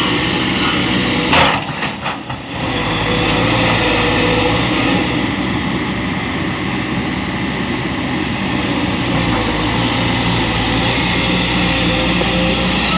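Kobelco SK200 hydraulic excavator's diesel engine running steadily under working load. There is one sharp knock about a second and a half in, then the engine note settles back to steady.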